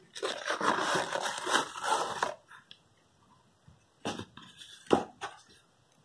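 Cardboard mailer being torn open: about two seconds of dense ripping and crackling. Then a few separate crinkles and knocks as the shrink-wrapped DVD box is handled, the sharpest near the end.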